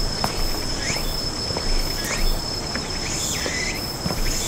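Insects droning steadily at one high pitch, with short chirping calls recurring about once a second.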